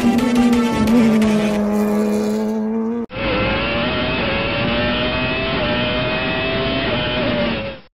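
Racing car engine running at steady high revs as it passes. About three seconds in, it cuts abruptly to a duller engine sound that rises slowly in pitch and fades out near the end.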